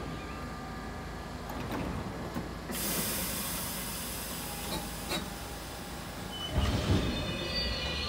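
R32 subway train at a station. A steady hum, then a loud hiss of air about three seconds in as the brakes release. Near the end come low rumbles and clunks as the train starts to move, with the faint rising whine of its traction motors.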